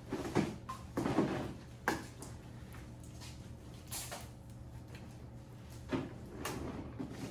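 Scattered knocks, clatter and rustling of people kneeling, moving about and handling equipment and paper at irregular moments.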